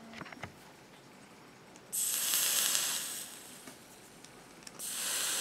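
Dual micro coils in a Tugboat rebuildable dripping atomizer firing on juice-soaked cotton while air is drawn through it: two hissing bursts of about a second each, about two seconds in and again near the end. The build is hitting hard.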